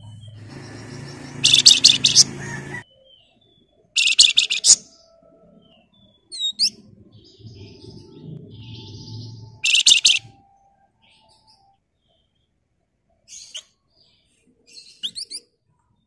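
Caged flamboyan (wergan Jawa, the Javan fulvetta) giving three loud bursts of fast, rattling notes, drill-like 'ngebren' chatter, with short high chirps between them and a quick pair of chirps near the end.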